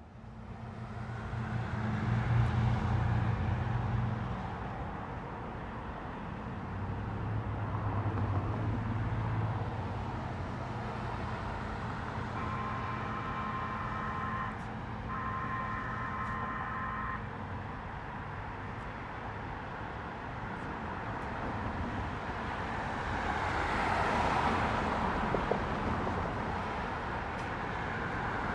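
Road traffic: vehicles running and passing, with one louder pass swelling up near the end. In the middle a pitched tone sounds twice, each about two seconds, with a short break between.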